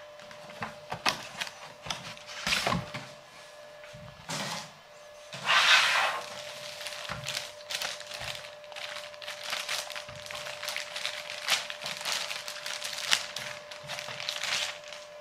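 A clear plastic bag crinkling and rustling as a router is handled and pulled out of it by hand: a run of small crackles, with one louder rustle about six seconds in.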